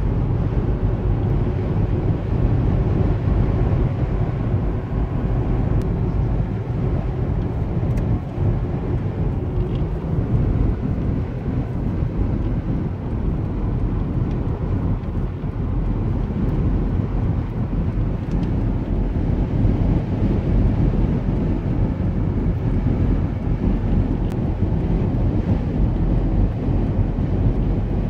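Car driving at highway speed through a sandstorm, heard from inside: a steady low rumble of tyre, engine and wind noise.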